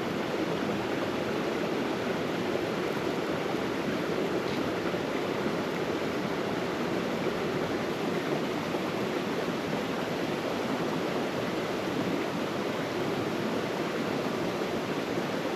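Steady, even rushing of running water, with no clear crackle or knock standing out.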